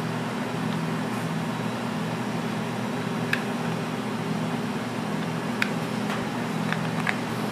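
A steady mechanical hum, like a fan or kitchen appliance, with a few light clicks and taps scattered through, the sharpest a little over halfway through.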